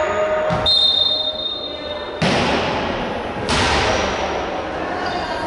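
A referee's whistle shrills for about a second and a half, then a volleyball is struck twice, about a second and a half apart, each hit ringing on in the echoing gym.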